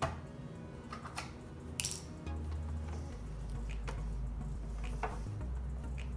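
Onion chopper at work: a few short, sharp clacks as it cuts through an onion. Background music with a low bass line plays underneath.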